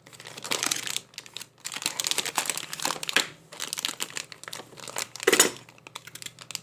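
Plastic retail packaging of a RAM memory kit crackling and crinkling in the hands as it is turned over and handled, in irregular bursts, with a louder crackle about five seconds in.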